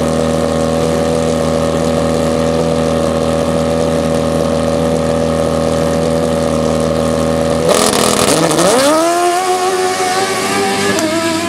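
Dirt drag motorcycle engine running at a steady note on the start line, then launching about eight seconds in: a sudden rush of noise as the paddle tire bites, and the engine pitch climbs sharply for about a second before holding high as the bike runs down the dirt strip.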